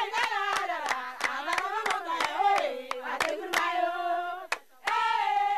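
A high voice singing long held notes over steady rhythmic hand-clapping, about three claps a second.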